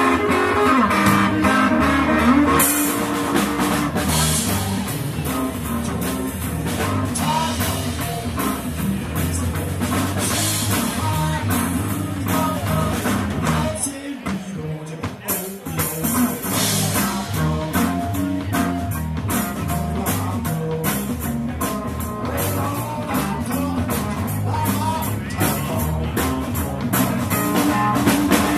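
Live blues-rock band playing through a stage PA: electric guitar, electric bass and drum kit.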